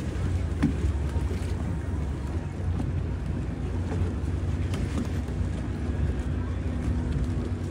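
Motorboat under way, its engine running with a steady low rumble, and wind buffeting the microphone.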